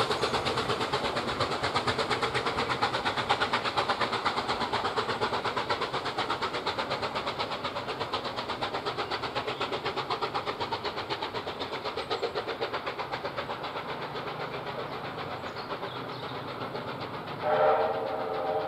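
Steam locomotive hauling a train away, its exhaust chuffs coming in a fast, steady rhythm and slowly fading. Near the end the locomotive sounds a short steam whistle.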